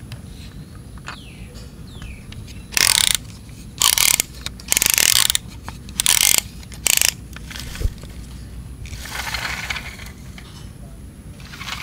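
Ratcheting plastic mechanism of a toy fire truck, five loud rasping bursts about a second apart, with softer scraping afterwards.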